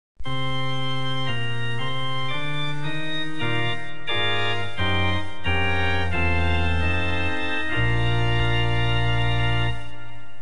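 Organ music: a slow series of sustained chords that starts abruptly, changes chord every half second to a second, and closes on a long held chord near the end.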